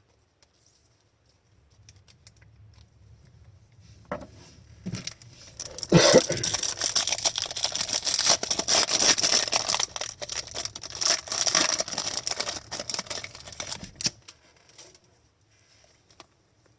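A foil trading-card pack wrapper being torn open and crinkled by hand. Faint handling rustle first, then loud crinkling from about six seconds in that stops abruptly about eight seconds later.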